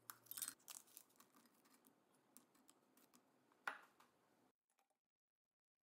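Oreo biscuits being dropped by hand into a glass food-processor bowl: a run of faint clicks and taps, with one louder knock about three and a half seconds in.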